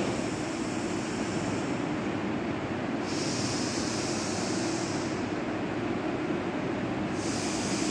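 Slow alternate-nostril breathing (anulom vilom pranayama): long hissing breaths through one nostril at a time, each two to three seconds long with pauses between, over a steady background noise.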